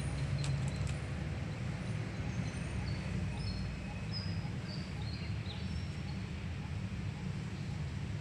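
Steady low rumble of outdoor background noise, with a few faint, short, high bird chirps about two to five seconds in.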